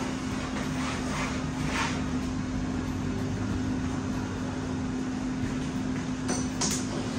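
A steady machine hum with one constant low tone, from a running household appliance or fan. In the first two seconds a few short swishes come from a hand wiping the wooden table, and about six seconds in there are two sharp clicks.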